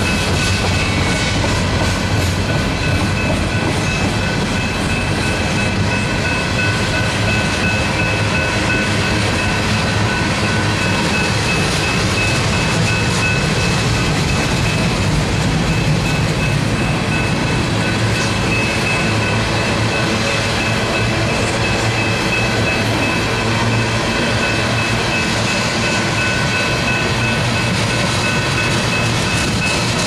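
Freight train of tank cars and covered hoppers rolling past: a steady rumble and rattle of steel wheels on the rails, with a thin high ringing tone running over it.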